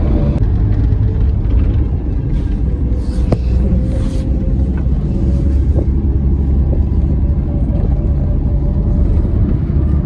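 Steady low rumble of a car driving on a road, heard from inside the cabin: engine and tyre noise, with a brief hiss about two to four seconds in.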